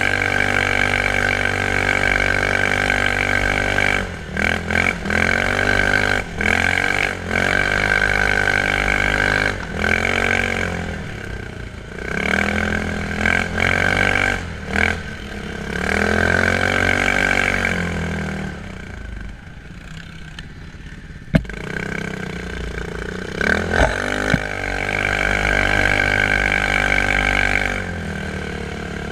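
Quad bike (ATV) engine being ridden, revving up and falling back again and again. It is quieter for a couple of seconds about two-thirds of the way through, and a couple of sharp clicks follow.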